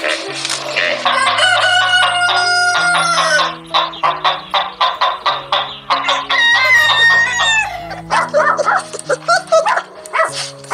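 A rooster crows twice, each crow a long held call that drops in pitch at its end, with hens clucking between the crows, over background music.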